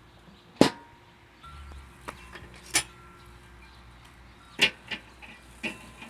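A handful of short metallic clinks and knocks, about six, spread unevenly, some ringing briefly, from handling at a charcoal grill.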